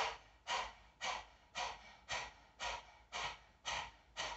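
A woman doing the yogic dog-panting breath: quick, even breaths huffed through a wide-open mouth with the tongue stuck right out, about two a second.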